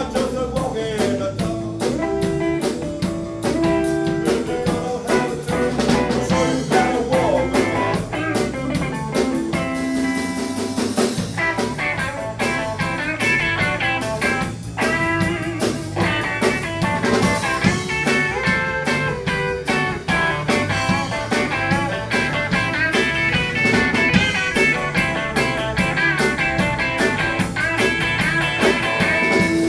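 Live blues band playing an instrumental passage with no vocals: semi-hollow electric guitar over electric bass guitar and a drum kit.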